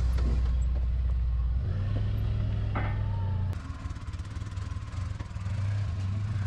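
Yamaha side-by-side's engine running as it is driven off a trailer ramp; its pitch steps up about two seconds in, and it drops in level around the middle before picking up again.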